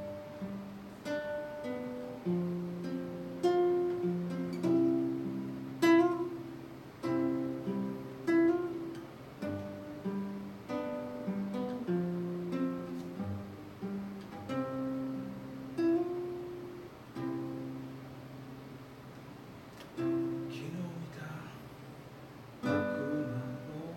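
Acoustic guitar playing a slow run of chords, each one struck and left to ring, about one a second, with a sparser stretch near the end.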